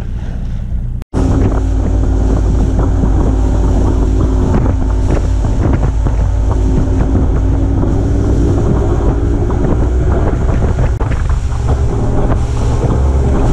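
Motorboat engine running steadily while the boat is under way, with heavy wind buffeting the microphone. It cuts in after a brief dropout about a second in.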